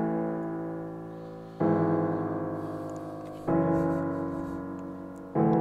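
Software piano playing sustained chords, a new chord struck about every two seconds and each one fading as it rings.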